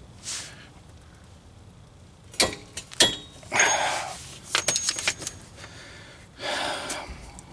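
Heavy breaths of effort, with two sharp metallic clicks about two and a half and three seconds in, from a torque wrench and socket being worked on the front hub's axle nut.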